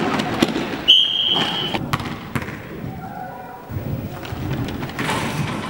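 A referee's whistle gives one short blast about a second in, lasting under a second, over the thuds of a basketball bouncing and players' shoes on the hall floor.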